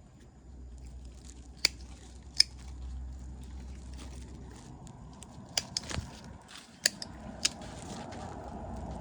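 A series of sharp, separate clicks and snaps, irregularly spaced and about a second apart, over faint rustling and a low rumble in the first half.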